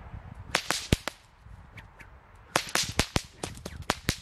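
Two whips cracking in staggered volleys, the 'machine gun' pattern done slowly. A quick run of four sharp cracks comes about half a second in, then after a pause a faster string of cracks follows from about two and a half seconds in, each crack heard separately.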